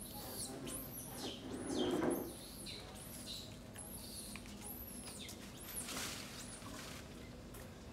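Many high-pitched animal chirps, each a quick rise and fall in pitch, repeating several times a second. A louder, lower rustling or grunting sound comes about two seconds in.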